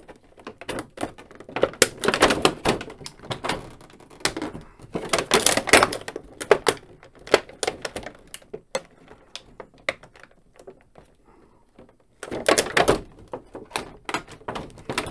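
Stiff clear plastic blister packaging crackling and clicking as fingers work a small plastic toy accessory free of it. The crinkling comes in denser bursts about two, five and thirteen seconds in, with a quieter lull shortly before the last one.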